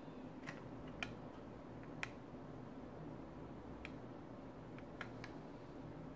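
Small hand-handling clicks from a plastic blister pack and a stainless-steel hose clamp being turned over in the hands: about seven sharp, faint ticks, the loudest about one and two seconds in, over a low steady hum.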